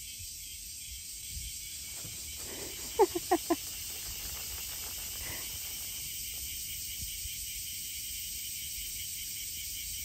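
Chorus of cicadas giving a steady high-pitched buzzing drone. About three seconds in, four quick falling chirps sound over it, the loudest thing heard.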